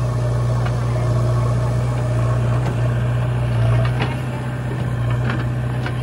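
Diesel engines of farm tractors and a JCB 3DX backhoe loader running steadily, with a constant low hum and a few brief knocks.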